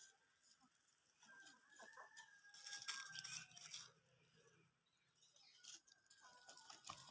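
Rooster crowing faintly: a long held crow about a second in, and a second crow starting near the end, with light scratchy rustling between.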